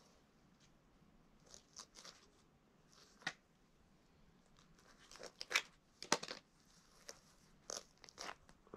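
Scattered crinkles and crunches from a clear plastic bag and knife work as a grouse is cut up and its meat handled, with the busiest and loudest stretch a little past halfway.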